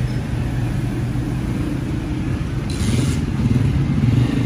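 Steady low engine rumble, with a brief hiss about three seconds in.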